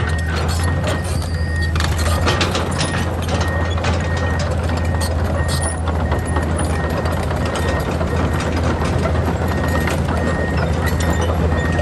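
Komatsu PC210 excavator's diesel engine running steadily, with a high warning beeper sounding in regular short beeps and scattered clanks and knocks.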